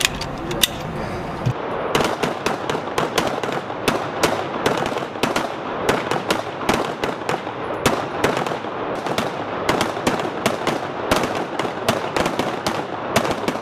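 Sig Sauer M17 and M18 9mm pistols fired by several shooters at once, in irregular overlapping shots several a second, each with a ringing echo off the indoor range walls. The shooting starts about two seconds in, after a few light clicks.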